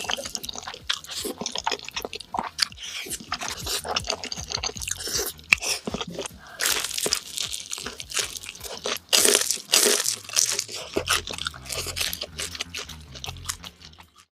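Close-miked eating: a person taking crunchy bites and chewing, a dense, irregular run of crisp crunches and wet mouth noises from a jajangmyeon (black bean noodle) meal.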